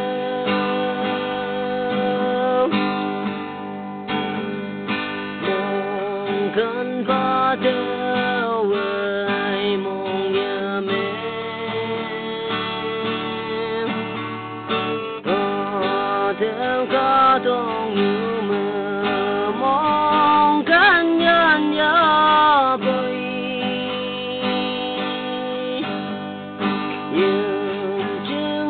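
Konyak love song: strummed acoustic guitar under a sung melody whose pitch slides and bends, most ornamented about two-thirds of the way in.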